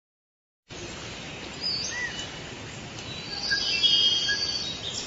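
Jungle ambience: birds chirping and whistling over a steady hiss of insects, starting about two-thirds of a second in and growing louder around the middle.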